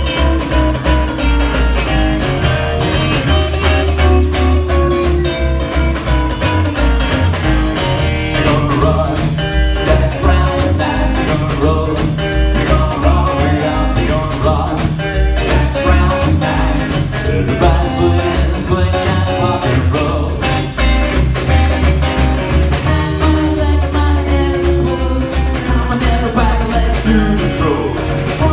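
Live rock-and-roll band playing: hollow-body archtop electric guitar, upright double bass and drums, with a strong, rhythmic bass pulse. A man sings lead over it for much of the passage.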